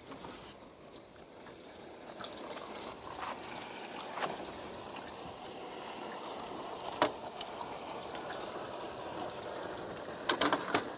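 River water trickling and lapping at the side of a fishing boat, with a few light knocks and clicks: a sharp one about seven seconds in and a quick cluster near the end.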